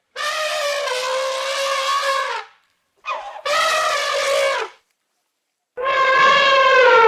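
An animal giving three long, loud, horn-like calls, each held on a steady pitch, the last one dropping in pitch as it ends.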